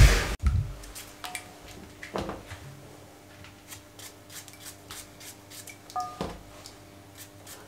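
Kitchen knife cutting raw peeled turnip held in the hand: faint scattered clicks and taps, with a few soft knocks about one, two and six seconds in.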